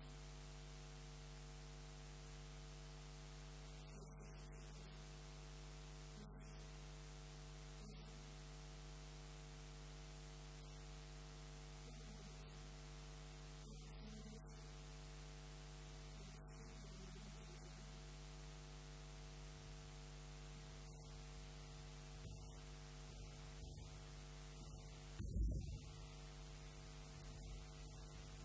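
Steady electrical mains hum, with one brief thud near the end.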